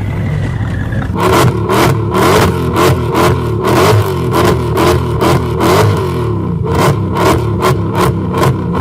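Mercedes-AMG V8 engine with a falling whine in the first second, then revved in quick repeated throttle blips, about three a second.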